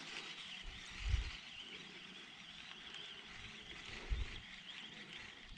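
Outdoor lakeside ambience: a steady high chorus of wild animals, with two dull low thumps, one about a second in and one about four seconds in.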